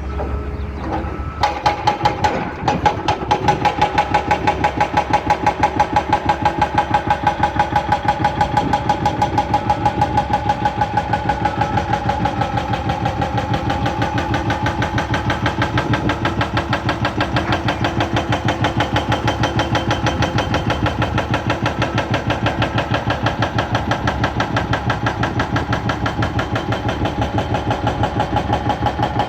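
An excavator-mounted hydraulic breaker starts hammering about a second and a half in, striking in a fast, even rhythm of several blows a second with a metallic ring, over the excavator's running engine.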